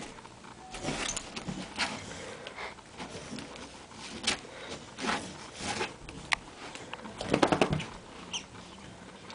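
Squeaky toy fastened to a dog's collar squeaking in short, irregular bursts as the dog twists and rolls on carpet to reach it, with a quick run of squeaks about seven seconds in.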